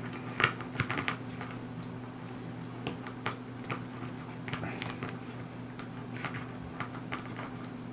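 Light clicks and taps of plastic game miniatures being handled and set down, scattered irregularly, over a steady low hum.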